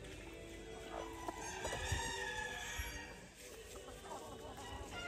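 Ayam Cemani chickens clucking, several short calls overlapping.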